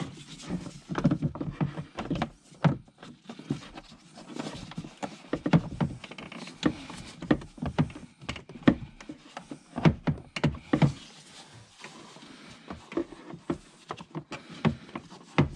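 Hard plastic airbox parts handled by hand: irregular clicks, knocks and rubbing as pieces are pushed and fitted into place, thinning out in the last few seconds.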